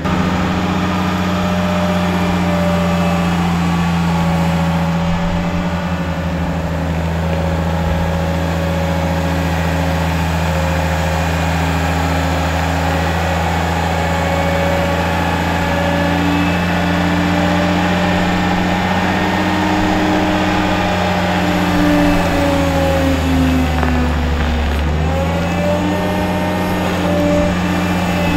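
Boat travel lift's engine running steadily at a constant pitch; near the end the revs sag briefly and then pick up again.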